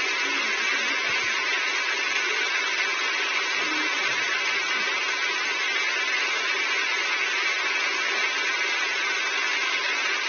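Road roller running steadily, a constant mechanical whir that holds the same level throughout.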